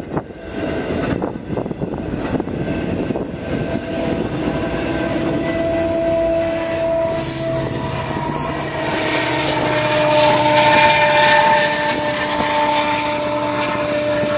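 Freight train passing close by: container well cars clattering over the rails, then a CN diesel locomotive rolling through with a steady engine drone that builds and is loudest about ten seconds in.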